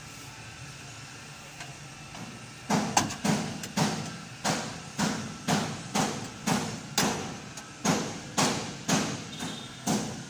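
Repeated hammering, about two blows a second, starting about two and a half seconds in, over a steady low hum.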